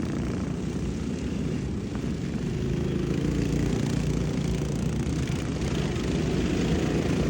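Racing lawnmower engines running steadily.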